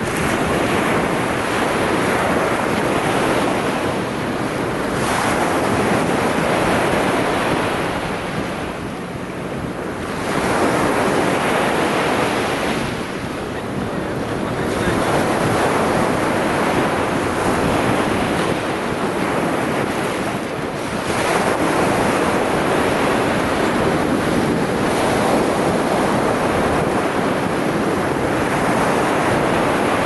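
Small sea waves breaking and washing up a stony shore, the surf swelling and easing every few seconds. Wind rumbles on the microphone.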